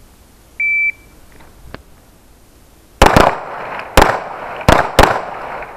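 A shot timer gives one short beep, and about two seconds later 9mm pistol shots ring out: five shots in about two seconds, the first two nearly together, each followed by a short echo.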